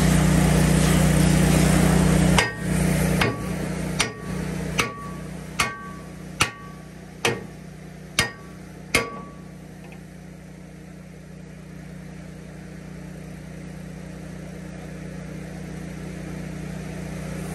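A steady engine hum cuts out, then a hammer strikes steel nine times, a little under one blow a second, each blow ringing briefly.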